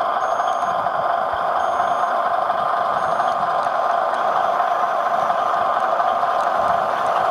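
Steady high whir of a radio-controlled vehicle's small electric motor, with faint short high beeps about every second and a half in the first few seconds.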